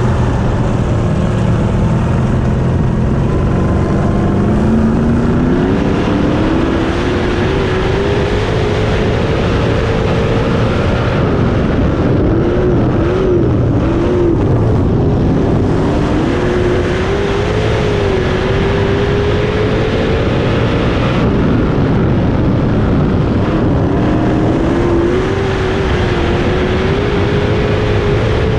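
A 305 sprint car's V8 engine running on track, heard from a camera mounted on the car. Its pitch climbs steadily over the first several seconds as it picks up speed, wavers up and down around halfway through, dips, then climbs again near the end, over constant rumble and wind noise.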